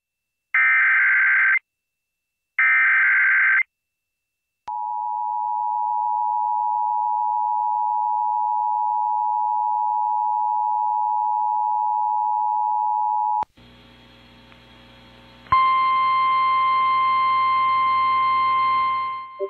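Emergency Alert System header: two buzzy one-second data bursts a second apart, followed by the steady two-tone EAS attention signal held about nine seconds. It cuts to a faint hiss, and about two seconds later a loud steady single-tone NOAA Weather Radio warning alarm starts.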